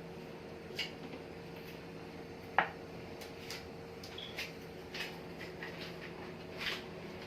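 Small kitchen taps and clicks of a pan and utensils on the stove, with one sharper knock about two and a half seconds in, over a low steady hum.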